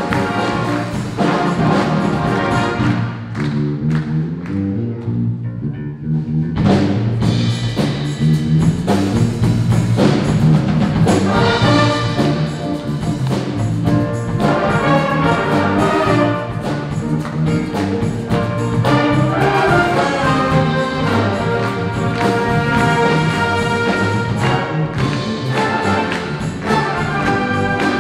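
School wind band playing live, brass and drums together. About three seconds in the band drops to a thinner passage carried by a low walking line, then the full ensemble comes back in around seven seconds.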